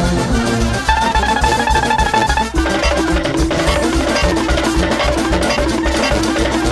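Music with a steady drum beat under a repeating melody of short pitched notes; the melody changes to a new repeated figure about two and a half seconds in.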